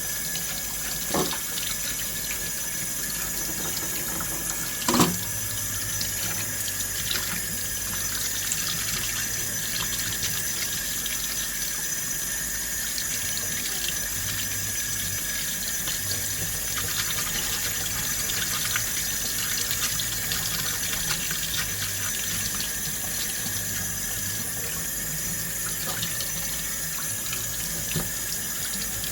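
Tap water running steadily into a sink, with two short knocks, about a second in and about five seconds in.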